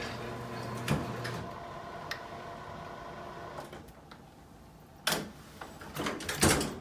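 Electric hospital bed motor humming as the head of the bed lowers, stopping about a second and a half in. A few light clicks follow, then two loud knocks near the end as the bed's side rail is handled and lowered.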